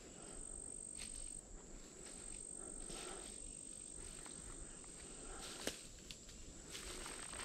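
Crickets or other insects trilling steadily at a high pitch, with soft footsteps rustling through dry leaf litter every second or two and one sharp click about five and a half seconds in.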